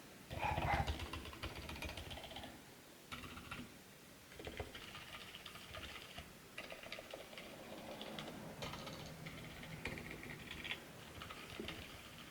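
Typing on a mechanical keyboard with an aluminium Tada68 case, stock unlubricated Gazzew Boba Silver silent linear switches and PBT keycaps. The keys are pressed in quick runs separated by short pauses, and the loudest run comes about a second in.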